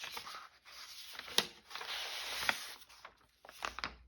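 Sheets of paper rustling and sliding as they are handled and sorted, with two sharp taps or snaps about one and a half and two and a half seconds in.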